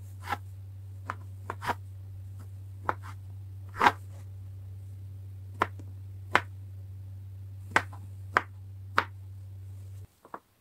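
Hand-done kitchen prep: about eleven short, sharp snaps or taps at uneven intervals, over a steady low hum that cuts off near the end.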